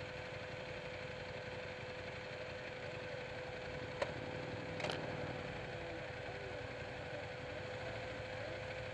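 Buell 1125R's V-twin engine idling steadily while the bike stands still. There is a sharp click about four seconds in and a brief rustle about a second later.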